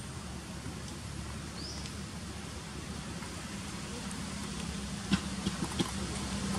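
Steady low hum with a hiss over it, with a faint short chirp under two seconds in and a few sharp clicks about five to six seconds in.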